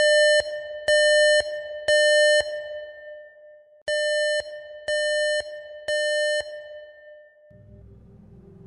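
Six electronic beeps in two groups of three, one beep a second, each a steady mid-pitched tone about half a second long. A low synthesizer drone fades in near the end.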